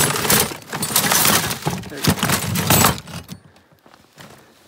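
Steel traps and chains jangling and clattering against each other as they are rummaged through in a tote, dying down after about three seconds.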